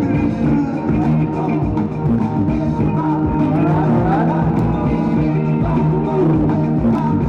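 Loud rock-sounding music played by the DJ over the hall's sound system for the breaking battle.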